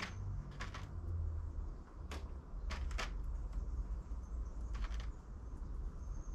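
Plastic seed trays and containers being handled: about five light, sharp clicks and taps spaced irregularly, over a steady low rumble.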